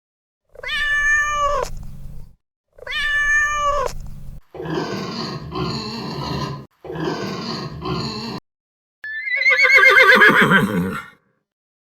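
A run of separate animal calls cut one after another: two drawn-out pitched calls that drop at the end, then two harsher, noisier calls, then a loud quavering call about nine seconds in.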